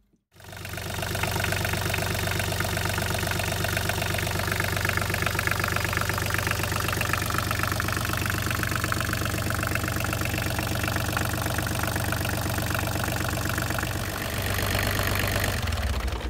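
Volvo Penta D1-30B three-cylinder marine diesel idling steadily with an even rhythmic beat, run to circulate radiator flush through its cooling system. The sound cuts in abruptly just after the start and drops away at the very end.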